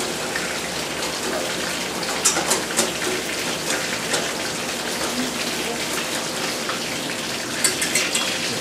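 Wire whisk beating milk and egg for spätzle batter in a stainless steel pot: a steady scraping patter of the wires against the metal, with bursts of sharper clicks about two seconds in and again near the end.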